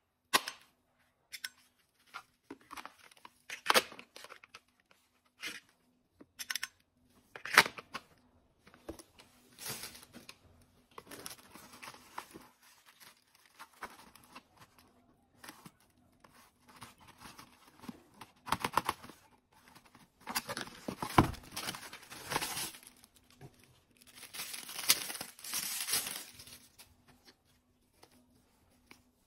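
A few sharp plastic clicks as a toy pistol is handled, then rustling, crinkling and tearing of packaging as a small cardboard box is opened and the plastic wrapping around toy binoculars is pulled off.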